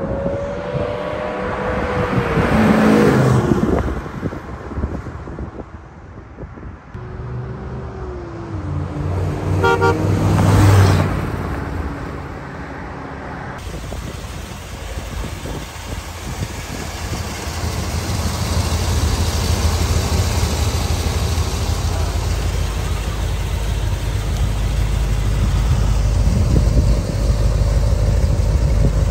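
Two vehicles passing on a road, each swelling and fading with a falling pitch. Then a 1969 Corvette Stingray's L46 350 cubic-inch V8 idles steadily with a low rumble that grows slightly louder toward the end.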